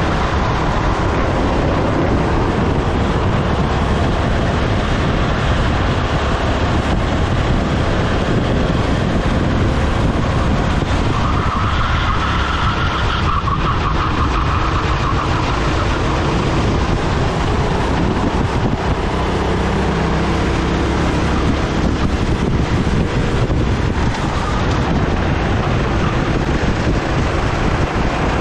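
Racing kart's engine running hard at track speed, heard from on board, with the pitch shifting as it works through corners and straights. Wind buffets the microphone throughout.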